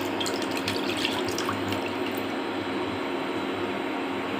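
Milk being poured from a container into a cooking pan: a steady, even liquid pour, with a few small ticks near the start.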